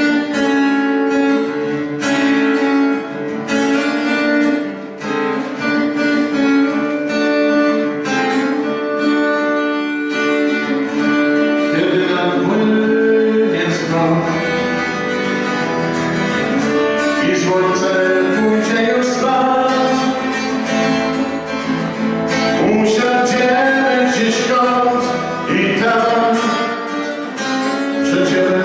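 Acoustic guitar strummed alone at first, then a man singing along with it from about twelve seconds in: a solo voice-and-guitar song performed live.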